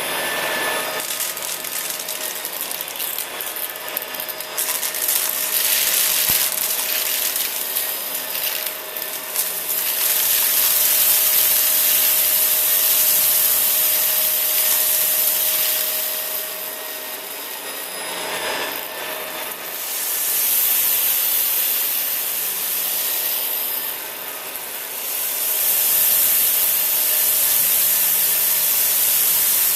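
Shark Rotator upright vacuum cleaner running while it is pushed back and forth over a floor scattered with dry debris (sugar, beans, rice), its steady whoosh swelling and easing with each pass.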